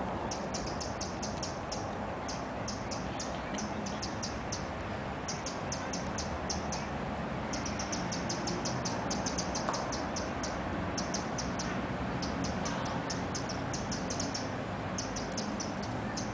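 High-pitched chirping in quick trains of short notes, each train about a second long, repeating over and over above a steady low background rumble.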